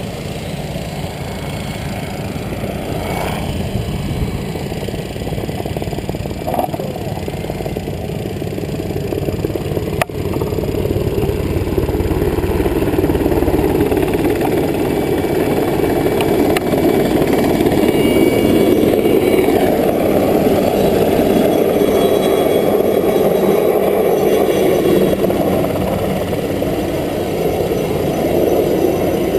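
An engine running steadily, growing louder about twelve seconds in, with a single sharp click about ten seconds in.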